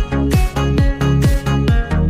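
Background electronic dance music with a steady four-on-the-floor kick drum and synth chords.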